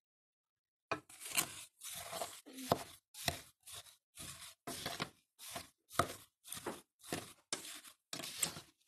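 A spatula stirring lingonberries and granulated sugar in a stainless steel pot, a gritty scraping of sugar crystals against the pot. The strokes start about a second in and repeat at roughly two a second.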